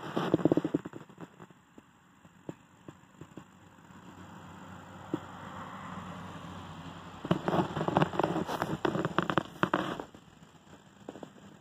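Crackling rustles in two bursts, one at the start and another from about seven to ten seconds in, with a faint steady hiss between.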